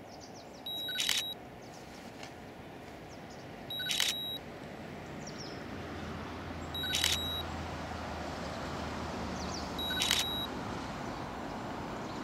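Camera shutter firing four times, evenly about three seconds apart, while a carp is held up for trophy photos.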